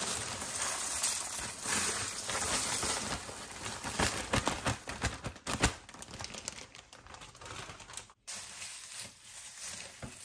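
Plastic zip-top freezer bag crinkling and crackling as frozen Swiss chard is broken up and shaken out of it. The crinkling is dense and loud for the first half or so, then gives way to softer rustling as the leaves are stirred with a wooden spoon near the end.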